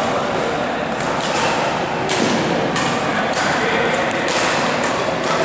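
Badminton rally: rackets strike the shuttlecock several times, roughly once a second, mixed with thuds of players' shoes on the court floor and background voices.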